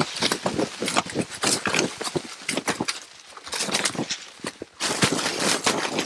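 Crunching and rustling in dry leaf litter and brush: dense, irregular crackles that thin out briefly about three seconds in, then pick up again.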